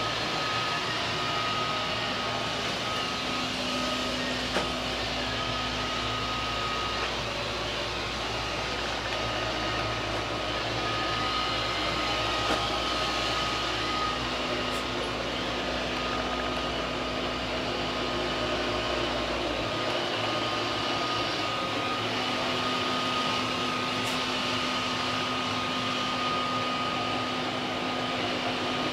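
Steady machine-like hum with a few steady tones running through it; a deep low hum underneath cuts out about two-thirds of the way through.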